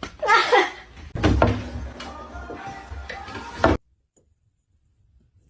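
Music with a sudden, knock-like start about a second in, cutting off abruptly near four seconds.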